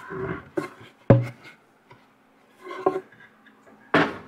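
A wooden board being handled at a benchtop planer: a heavy thud about a second in, light scraping and knocking, and a sharp knock near the end, over a faint steady hum.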